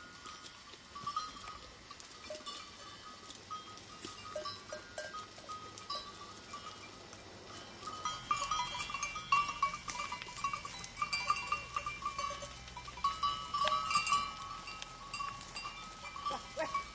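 A flock of sheep and goats grazing: bleats amid the clinking of their neck bells, busier and louder from about halfway through.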